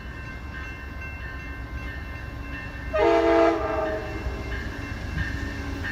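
Amtrak passenger locomotive's multi-note air horn sounding one blast about halfway through: a steady chord, loudest for the first half-second and then trailing off, over a low rumble.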